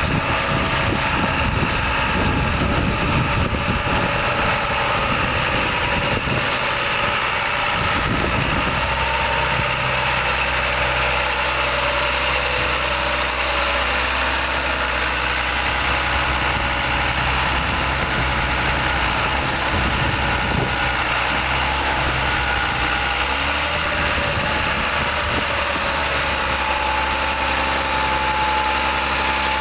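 John Deere 8200 tractor's six-cylinder diesel engine running, settling into a steady idle after about eight seconds.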